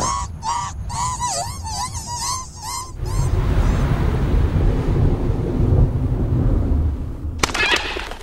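Cartoon sound effects: a rapid string of short squeaky, honking calls for about three seconds, then a low rumbling rush of noise for about four seconds, ending in a quick rattle of clicks.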